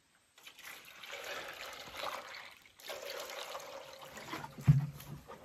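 Water pouring and splashing from a plastic jerrycan into a shallow metal tray of liquid, in two pours with a short break near the middle. A single low knock about three-quarters of the way through.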